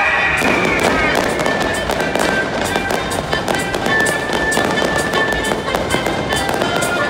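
Fireworks going off in rapid succession, a dense run of sharp cracks and pops as the shells burst and crackle. Music with long held notes plays along underneath.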